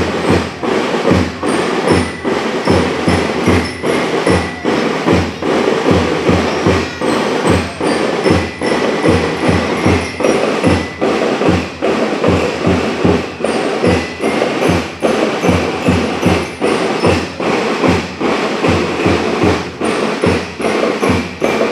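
Drum and lyre corps playing a march: bass and snare drums keep a steady beat of about two strikes a second, with bell lyres ringing high notes of the tune above.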